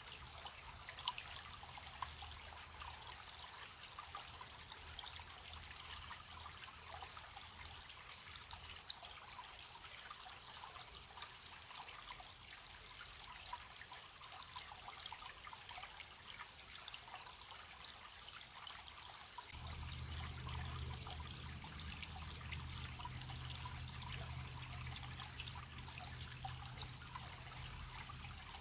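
Gentle stream trickling steadily, with crickets chirping in a faint, high, evenly pulsed trill. A low hum comes up about twenty seconds in.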